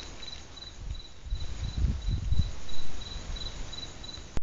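A cricket chirping in a steady, high-pitched rhythm of about five chirps a second, fading out about three and a half seconds in. A brief low rumble comes through about two seconds in.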